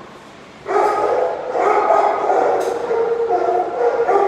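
Many shelter dogs barking at once in a kennel room, the din starting abruptly under a second in and running on as overlapping calls.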